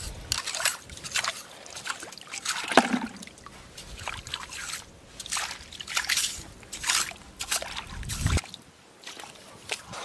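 Shallow seawater sloshing and splashing in short, irregular bursts, about one a second, as a booted wader shifts her feet and pokes tongs into the water and wet mud among the rocks.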